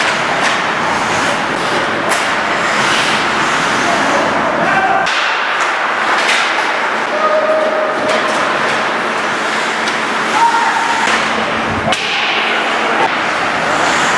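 Ice hockey play: sharp clacks of sticks and puck and thuds against the boards, over a steady din of skates on ice and spectators' voices.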